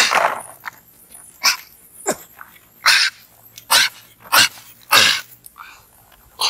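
A string of short, loud animal calls, more than one a second, several of them sliding steeply down in pitch.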